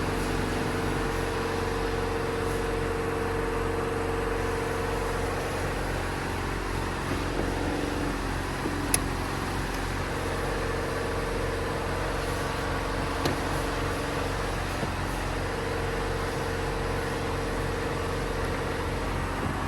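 Philips EP2231 automatic coffee machine running with a steady mechanical hum. A mid-pitched tone in it cuts out twice and comes back, and there are two short clicks about halfway through.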